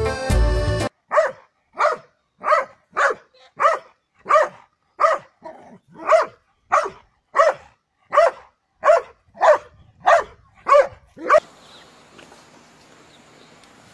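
Bernese mountain dog barking again and again, about sixteen short barks at a steady pace of roughly one every two-thirds of a second, which then stop. Music cuts off just before the barking begins.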